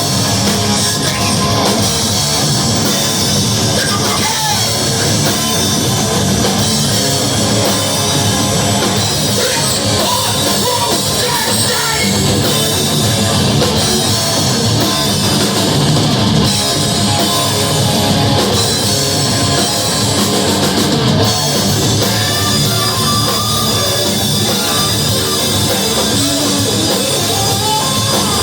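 A loud live heavy rock band playing: distorted guitars, bass and a drum kit, with vocals over them.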